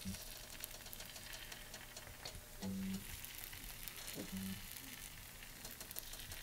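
Pancake batter sizzling quietly in a hot frying pan as it is piped from a squeeze bottle, with faint crackling throughout. Two short low hums break in, about three and four and a half seconds in.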